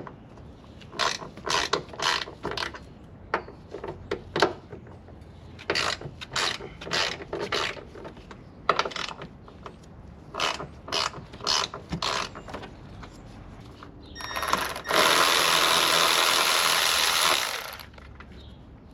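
A ratchet wrench clicking in short bursts as a 13mm bolt is worked loose on the car's front suspension. Near the end comes a loud, steady noise about three seconds long.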